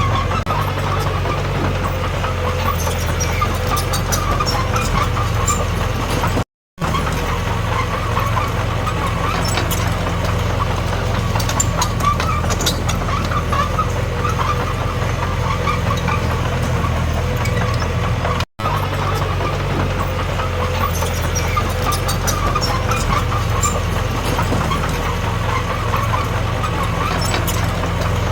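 Diesel engine of a D21P bulldozer running steadily at work, with faint clicks over it. The sound cuts out briefly twice, about six and a half and eighteen and a half seconds in.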